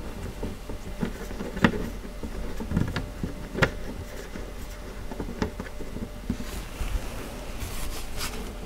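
Scattered light clicks and knocks of a screw being driven by hand up through the bottom panel into the middle divider of a board storage cubby, with a short rubbing of hand on board near the end.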